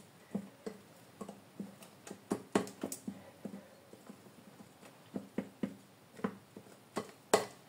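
Cake batter beaten by hand with a whisk in a glass bowl: a run of soft rhythmic knocks and wet slaps, about three a second, with a few louder strokes.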